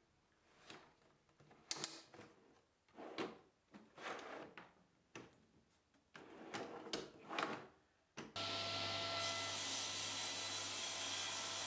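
Shallow drawers rolled in and out on metal ball-bearing drawer slides, a string of short sliding runs and knocks as they open and shut. About eight seconds in a table saw cuts in abruptly, running steadily and much louder, with a low hum.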